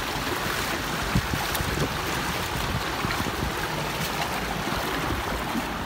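Steady rushing and splashing of shallow seawater as a person wades through it in a narrow channel, feet sloshing through the water.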